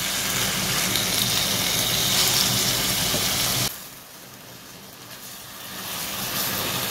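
Marinated chicken strips sizzling as they fry in hot oil in a non-stick pan, stirred with a silicone spatula. The sizzle drops away suddenly a little past halfway and builds back near the end.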